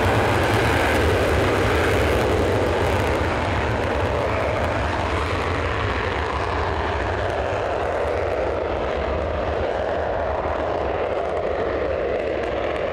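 F-35A Lightning II jets' F135 turbofan engines running loud and steady, one jet moving off on its takeoff roll; the high hiss thins out after a few seconds as it moves away down the runway.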